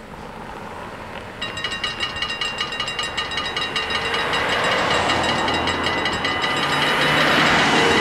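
Dutch level-crossing warning bells start up about a second and a half in and ring rapidly and evenly, signalling the barriers about to close. Passing car traffic swells in the background toward the end.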